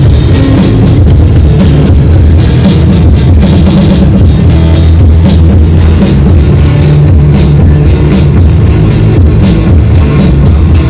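Loud live rock music: electric guitar played with a drum kit, the bass drum and cymbal hits strong, with no pause.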